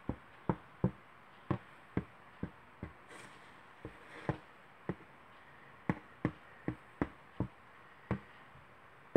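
Plastic nozzle of a tacky glue bottle tapping down on a foam core board as dots of glue are dabbed on one after another: a string of short, sharp taps, roughly two a second and unevenly spaced, with a soft rustle of handling about three seconds in.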